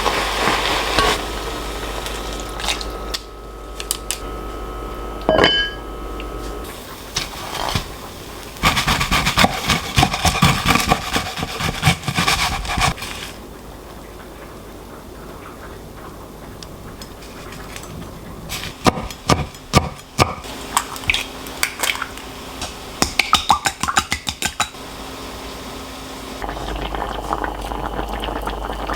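Kitchen cooking sounds: pots, dishes and utensils clattering and clinking in bursts, with quieter stretches between.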